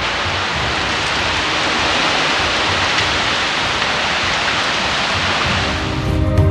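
Heavy rain pouring steadily in a squall line, a dense, even rush of noise. Music comes in near the end as the rain fades out.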